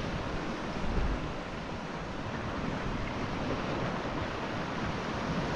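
Steady wash of calm sea water lapping around a kayak, with some low wind rumble on the microphone.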